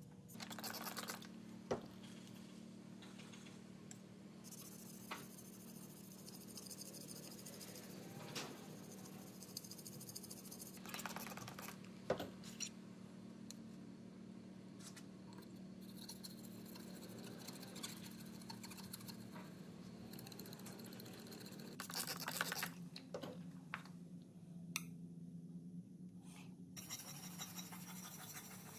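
Steel plane blade rubbed back and forth on sharpening stones and a diamond plate: quiet bouts of gritty scraping, with a couple of sharp clicks from the blade or stones being set down, over a steady low hum.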